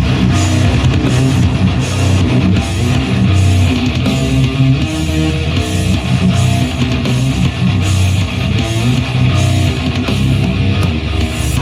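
Rock music with electric guitar and a steady beat, played through a Bose SoundLink Max portable speaker.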